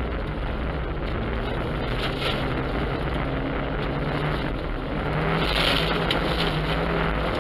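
Opel car engine running under load while driving on snow, heard from inside the cabin over a steady road rush. About five seconds in the revs rise a little and a louder hiss swells for about a second.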